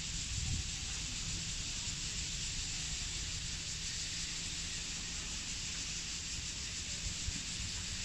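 Wind buffeting the microphone in low, uneven gusts over a steady high hiss.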